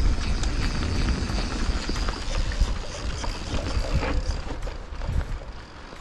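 Yeti SB150 mountain bike rolling along a dirt singletrack: tyres crunching over dirt, with rapid clicks and knocks from the bike rattling over the bumps, over a rumble of wind on the microphone. It quietens a little near the end.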